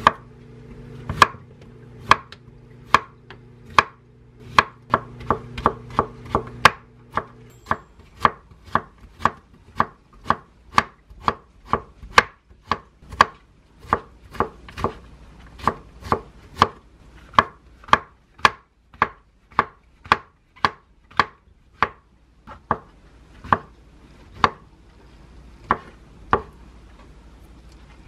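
Chef's knife chopping vegetables on a wooden cutting board, dicing Korean zucchini and mushrooms. It knocks sharply on the board about twice a second, with one brief pause.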